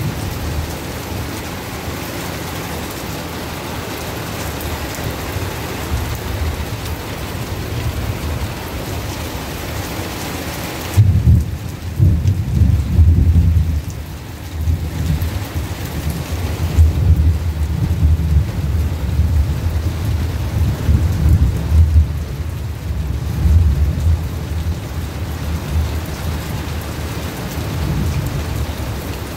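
Steady rain hiss. About a third of the way in, a long rolling rumble of thunder starts and swells and ebbs several times over the next dozen seconds before easing, with the rain continuing underneath.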